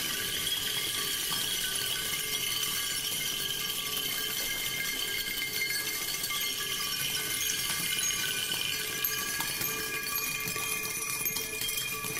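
Experimental cyclic percussion on a large spinning turntable: a dense, continuous jingling and rattling as a cluster of small bells is held against the rotating surface, over several steady ringing tones that hold throughout.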